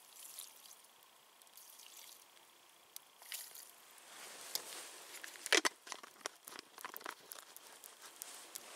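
Quiet rustling and crinkling of a heavy jacket and a groundsheet as a person moves beside a small log fire, with scattered small clicks and crackles; the loudest rustle comes about five and a half seconds in.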